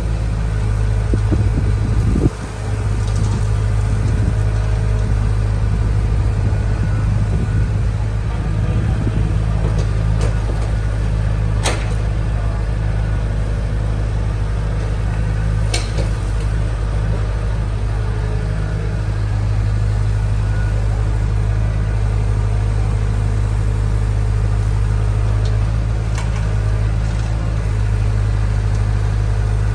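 Heavy diesel engine of construction machinery running steadily with a deep drone, and two sharp clicks or knocks partway through.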